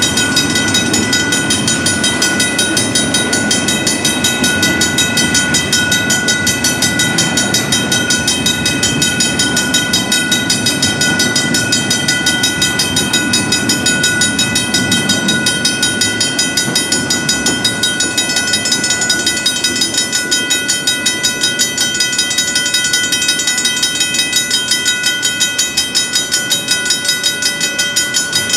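Griswold mechanical crossing bells ringing rapidly and continuously over the rumble of a double-stack intermodal freight train rolling slowly through the crossing. The rumble thins near the end as the last car clears.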